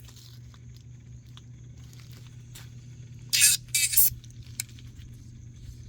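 Tweeters on a car sound rig under test giving two short bursts of high-pitched hiss a little past halfway, over a steady low hum.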